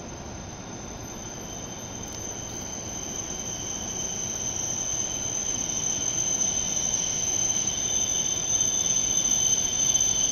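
W7 series Shinkansen train pulling slowly into the platform: a high-pitched squealing whine over a low rolling rumble, growing steadily louder as the train draws near.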